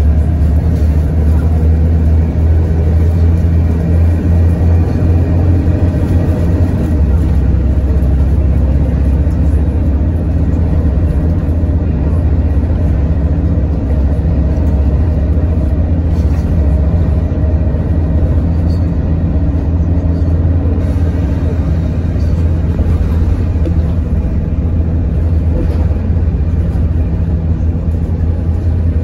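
Inside a moving city bus: a steady low rumble of the engine and road noise, with no sudden events.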